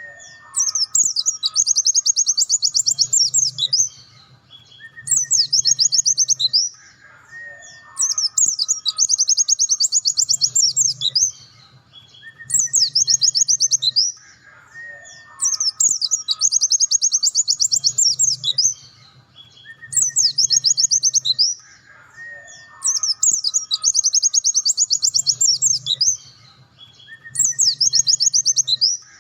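White-eye (pleci dakun) song: long bouts of rapid, high trilled notes with shorter whistled phrases between them. The same sequence repeats about every seven seconds, as in a looped masteran recording played to stimulate caged white-eyes.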